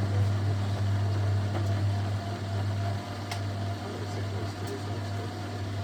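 Hoover Selectamatic 1100 automatic washing machine running with a steady low hum and a faint higher tone. A single click comes about three seconds in, after which it runs a little quieter.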